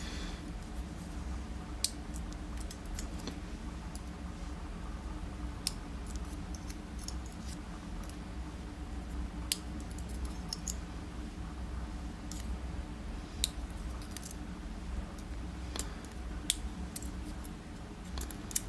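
Scattered sharp little metal clicks and taps from a Pfaffenhain euro cylinder lock being gutted, its small parts handled and set down, over a steady low background hum.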